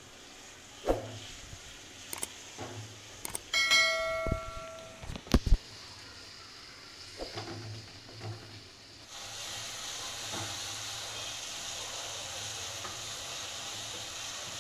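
Wooden spatula knocking and scraping against a metal kadai as tomatoes and onions are stirred, with one ringing metallic clang about four seconds in. From about nine seconds on, a steady sizzle of the tomatoes and onions frying in oil.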